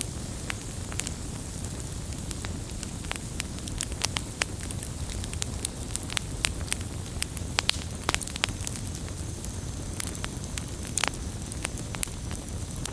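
Firewood burning: irregular sharp crackles and pops over a steady low rumble and hiss of the flames.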